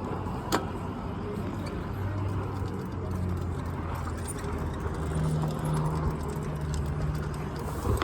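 Motorized bicycle's small two-stroke kit engine running steadily while riding, its pitch stepping up about five seconds in. There is a sharp click about half a second in.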